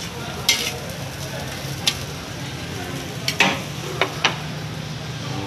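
Nasi goreng stir-fried in a steel wok: a steady sizzle, with the metal spatula scraping the pan and striking it in a handful of sharp clanks, two of them close together near the end.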